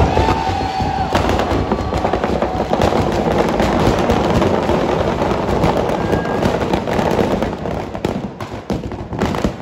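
Firecrackers packed inside a burning Ravan effigy going off in a dense, continuous crackle of bangs. Near the end it thins out to separate sharp cracks.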